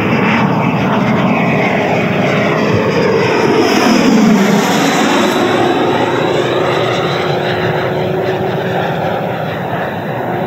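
Electric ducted fan of a large RC jet (JETFAN-120 PRO) making a fast pass: a rushing whine that is loudest about four seconds in and drops in pitch as the jet goes by, then fades a little.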